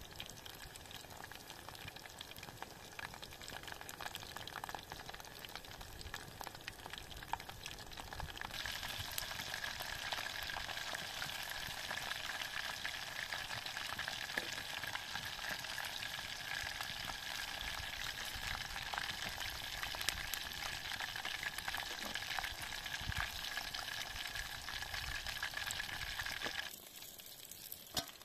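Breaded chicken pieces deep-frying in hot oil in a camping pot over a campfire: a steady sizzle and crackle of bubbling oil, louder from about eight seconds in and dropping off suddenly near the end.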